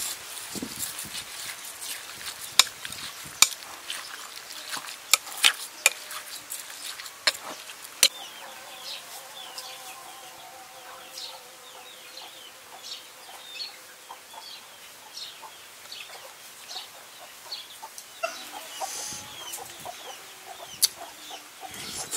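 A metal spoon clinking against a glass bowl while stirring a wet raw-meat salad: sharp, irregular ticks over the first eight seconds or so. After that, chickens clucking, with many short high chirps.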